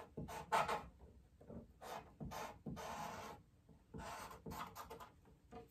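Blending stump rubbing over charcoal on drawing paper in short strokes at an uneven pace, with one longer stroke about three seconds in, as the drawing is shaded.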